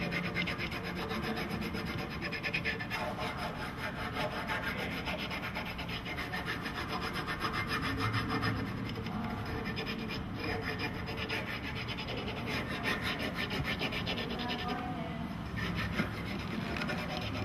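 Rapid, continuous rubbing and scraping of a hard object worked over clear grip film wrapped on a stand up paddle shaft, pressing out the air pockets under the film.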